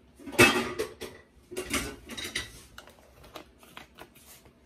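Kitchen utensils and dishes clattering and scraping: a few louder scrapes in the first two seconds, then light clicks and knocks.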